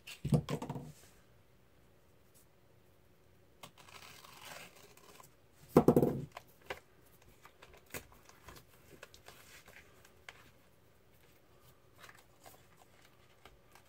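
Blue painter's tape being handled and pressed onto thin styrene sheet: soft crinkling and tearing-like rustles with scattered light clicks, and two short louder sounds about half a second in and near six seconds.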